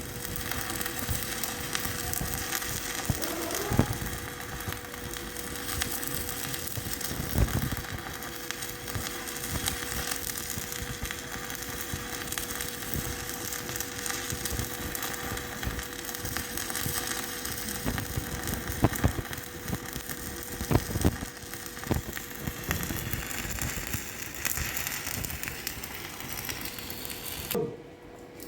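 Stick-welding arc of a 3.2 mm E6013 electrode burning at about 70 amperes, a steady dense crackle and sizzle with scattered pops. The arc breaks off abruptly near the end as the rod is pulled away.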